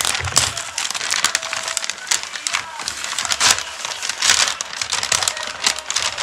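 Gift packaging crinkling and rustling as a present is unwrapped, with quick irregular crackles.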